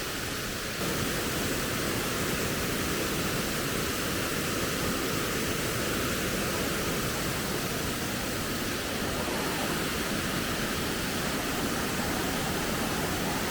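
Waterfall: a steady rush of falling water, growing slightly louder about a second in.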